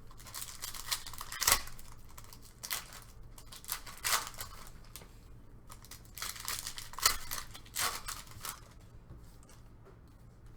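Basketball trading card pack wrappers being ripped open by hand, tearing and crinkling in irregular bursts, the sharpest about one and a half seconds in and again about seven seconds in.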